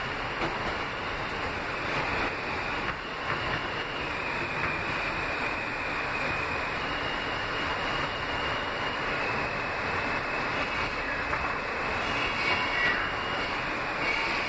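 Interior running noise of a Kawasaki R160B subway car moving through a tunnel: a steady rumble of wheels on rail with a faint high whine. A brief higher squeal sounds near the end.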